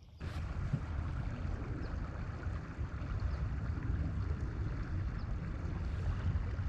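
Steady rushing noise, heaviest in the low end, that starts abruptly just after the beginning, with a few faint short high chirps over it.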